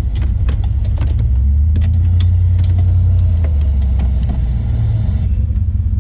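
Toyota Celica's engine idling, heard from inside the cabin as a steady low rumble that grows a little stronger about a second and a half in. Scattered light clicks and taps sound over it.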